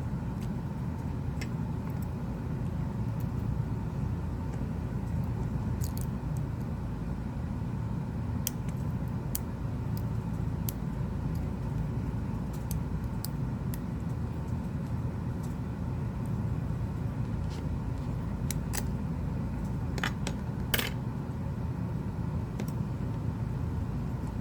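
Scattered small clicks and taps of phone parts and tools being handled during a smartphone repair, with a couple of sharper clicks near the end, over a steady low background rumble.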